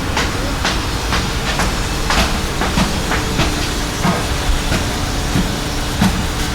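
Construction-site machinery running: a steady low engine rumble with a faint hum, broken by irregular sharp knocks about every half second.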